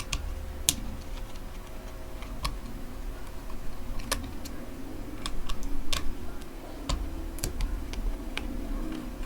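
Irregular small clicks and taps of hand work on a plastic Bluetooth bike speaker's case as it is taken apart, a dozen or so sharp ticks at uneven intervals.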